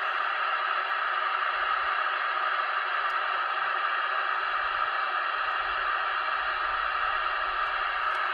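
Steady hiss of static from a CB radio's speaker, with no readable station coming through on the channel.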